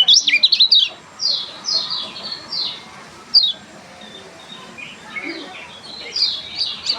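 A kecial kuning, a small yellow songbird, calling: a burst of rapid high chirps, then a run of short downward-sliding notes, and quicker chirping again near the end.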